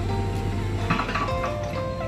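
Background music with held melodic notes changing pitch.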